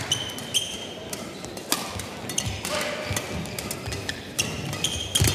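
Badminton rally: sharp racket hits on the shuttlecock a little more than a second apart, with brief high shoe squeaks and footfalls on the court floor.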